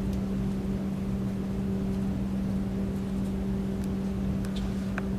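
Steady room hum with a constant low droning tone, like ventilation or electrical equipment running, and a couple of faint clicks near the end.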